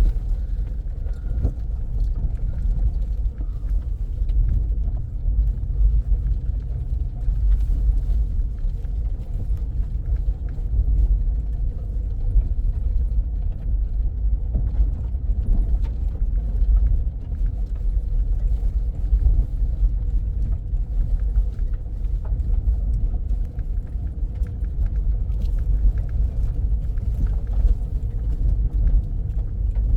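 Car driving along at speed: a steady low rumble of engine and tyres on the road, with faint scattered ticks.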